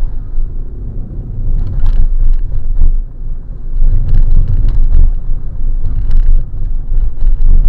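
A car being driven: a steady low road and engine rumble, with a few short knocks and clatters.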